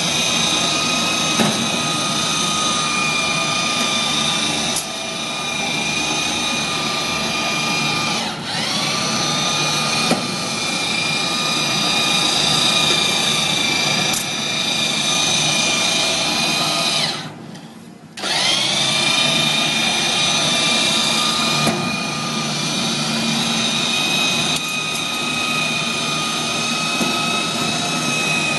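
Electric hand-held seaming machine for K-span arch roof panels running as it travels along the panel joint, a steady high motor whine. It dips once, then cuts out for about a second roughly two-thirds through and spins back up with a rising whine.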